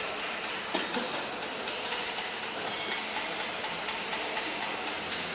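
Steady mechanical running noise and hiss of workshop machinery, with a short click a little under a second in.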